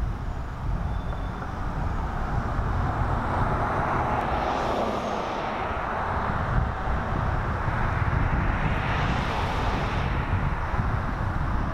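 Two vehicles passing on the street, their tyre and road noise swelling and fading about four and nine seconds in, over a steady low rumble.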